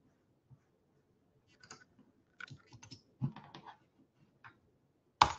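Keystrokes and clicks on a computer keyboard, coming in small irregular clusters, with one louder sharp click near the end.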